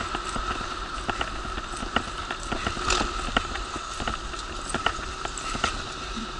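Wheelchair rolling over paving: a steady hum with a held whine, broken by frequent irregular clicks and rattles.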